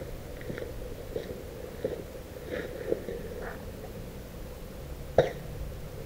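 A single sharp snap about five seconds in: a shot from a Novritsch SSG24 spring-powered airsoft sniper rifle fitted with a Tridos piston airbrake, which makes the shot very quiet. A few faint ticks come before it.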